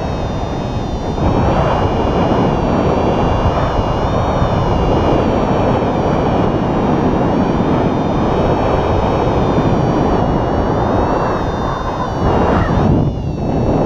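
Airflow rushing over the camera microphone of a paraglider in flight: a steady, loud wind roar with a thin high whine above it. It swells briefly near the end.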